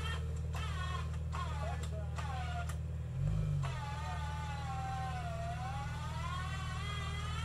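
A vehicle engine idles with a steady low hum and swells briefly about three seconds in. Over it are short pitched phrases, then a long high tone held for about four seconds that slowly dips in pitch and rises again.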